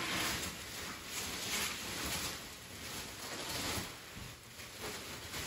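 Thin plastic bags crinkling and rustling as artificial Christmas tree sections are pulled out of them, in uneven swells of rustle.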